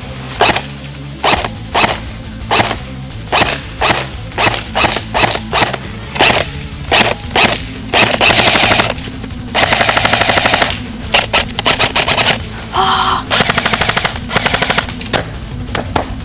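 Golden Eagle G36 airsoft electric gun firing: a string of single shots about two a second, then three full-auto bursts of about a second each.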